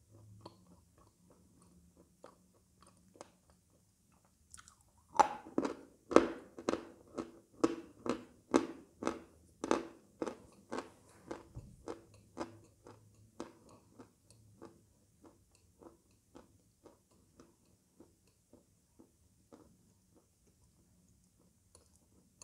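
Lump of white edible chalk bitten and chewed close to the microphone: faint chewing at first, then loud dry crunches about two a second from about five seconds in, softening into quiet chewing over the following seconds.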